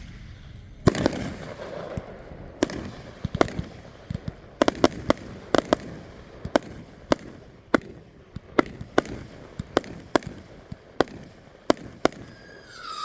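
A 28-shot consumer firework cake firing: some two dozen sharp bangs, irregularly spaced, about one to two a second. A falling whistle starts just before the end.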